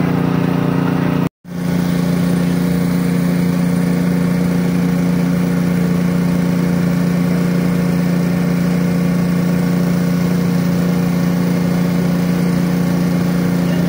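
Engine running at a steady speed, a constant drone, with a brief cut-out about a second in.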